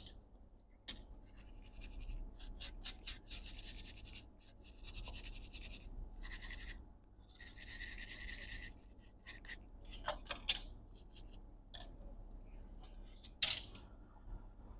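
A small brush scrubbing a MacBook Air A1466 logic board in several short spells of scratchy rubbing, cleaning the section around the freshly reflowed SMC chip. A few sharp clicks and knocks follow in the last few seconds, the loudest near the end.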